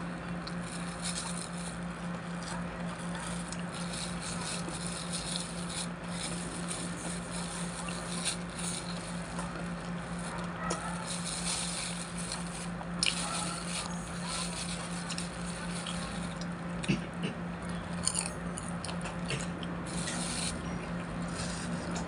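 Close-up eating sounds: a thin plastic bag crinkling in the hands and the crisp caramelized wrapper of a banana turon being bitten and chewed, irregular and scratchy, over a steady low hum.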